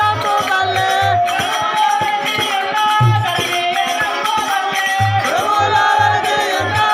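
Live folk theatre music: a melody line of held, wavering notes over a regular low drum beat, with a jingling rattle. The drum drops out for about two seconds, from about a second in, then comes back.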